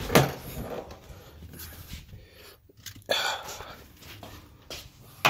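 Close handling noise: a few sharp knocks and rustles, the loudest near the start and about three seconds in, as car parts are picked up and handled.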